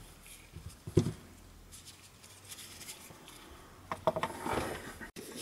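Handling noise on a workbench: a single thump about a second in as the JBL Go 2 speaker is set down on a silicone repair mat. Near the end comes a cluster of light clicks and rustling as a gloved hand handles a syringe.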